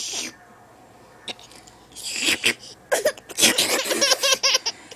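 High-pitched laughter: a breathy burst at the start and another about two seconds in, then a quick run of laughs over the last two seconds.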